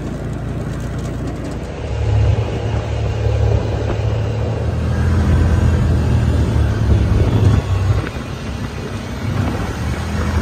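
Engine and road noise of a moving vehicle heard from on board: a steady low rumble that gets louder about two seconds in.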